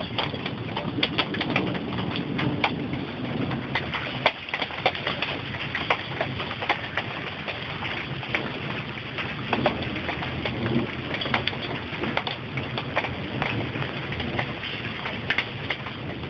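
Raindrops striking sheet metal: a dense, irregular patter of sharp ticks over a low steady wash of rain.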